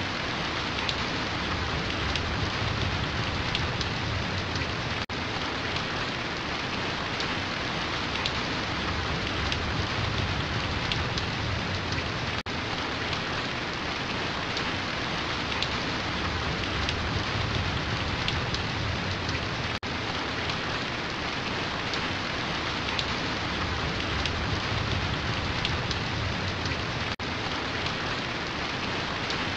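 Rain falling steadily, an even hiss of drops on surfaces, with a brief dip in level about every seven seconds.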